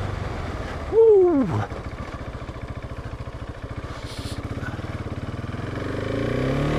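Husqvarna 701 Enduro's single-cylinder four-stroke engine running at low revs with an even rapid pulse, beginning to rev up near the end. About a second in there is a brief loud sound that falls steeply in pitch.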